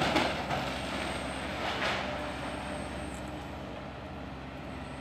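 Link-Belt tracked excavator's diesel engine running steadily during demolition, with two short crashes of brick and timber debris, one at the very start and one about two seconds in.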